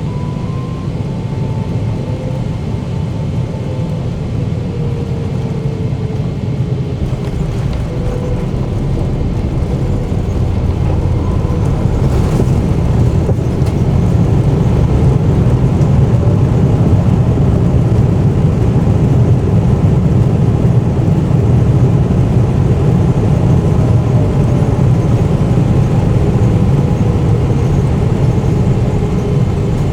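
Cabin noise inside a Boeing 777-300ER: a steady, loud rumble from its GE90 engines and airframe that builds gradually through the middle, with faint engine tones sliding down in pitch.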